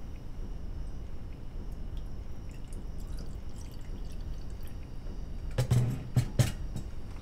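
Coffee poured from a stainless electric percolator into a glass, a thin splashing trickle, followed near the end by a few sharp knocks as the pot is set back down on the counter.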